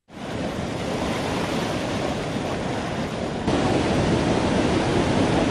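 Steady rushing of flood water from the overflowing Vamsadhara river, a continuous wash of noise that gets louder about three and a half seconds in.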